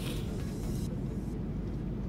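Steady low rumble of an Airbus A330 cabin in cruise flight, with faint background music over it.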